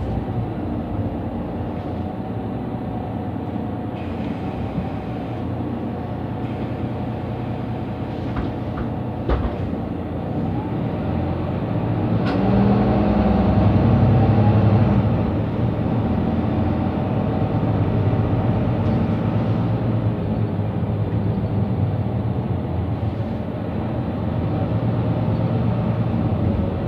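Mercedes-Benz Citaro C2 Euro 6 city bus under way between stops, its diesel engine and drivetrain running steadily. It grows louder with a rising pitch about twelve seconds in as the bus accelerates, then settles. There is a single short knock about nine seconds in.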